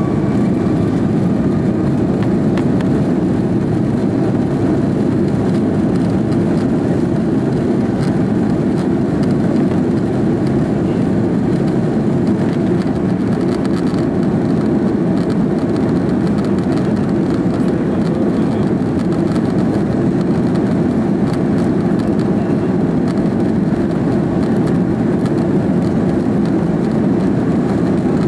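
Cabin noise inside an Airbus A330-300 taxiing: a steady, even low rumble of the jet engines at taxi power and the cabin air, with no change in level.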